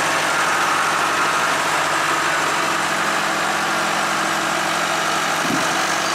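Wood-Mizer LT70 sawmill's engine running steadily at idle, with no cut being made.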